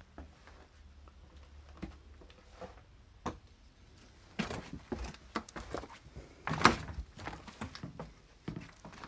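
Footsteps and scattered knocks on loose old wooden floorboards and fallen plaster debris, sparse at first, then heavier and more frequent from about halfway, with the loudest thud about two-thirds of the way through.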